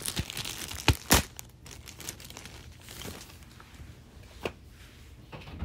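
Packaging being handled: paper and plastic rustling and crinkling, with two sharp knocks about a second in and one more later on.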